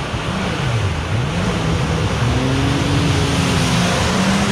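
Off-road 4x4's engine revving up and down several times, then holding a steadier pitch, as it drives through a muddy pond, over a steady rushing noise of churned water and mud.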